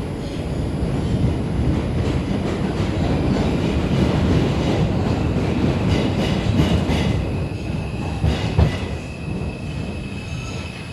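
R142 subway car running on the rails, heard from inside the car: a heavy wheel-and-rail rumble with a thin high squeal near the start and again near the end, and a run of clacks over rail joints partway through.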